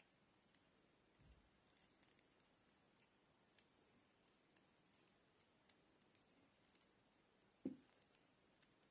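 Faint clicking and scratching of a metal F-connector being twisted by hand onto the braided end of a coaxial cable, with one louder knock near the end.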